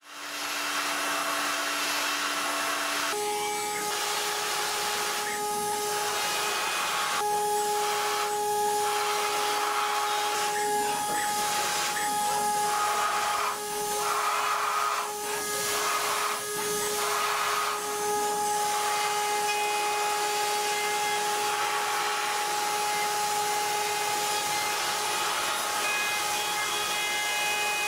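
A machine tool running with a steady high whine over a hiss of cutting noise, the hiss swelling and easing every second or two; the whine steps up in pitch about three seconds in.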